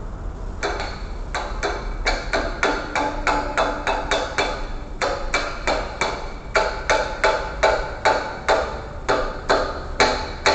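Hammer striking metal again and again, about three blows a second, each blow sharp with a short ring. The blows start about half a second in, pause briefly near the middle, then go on steadily.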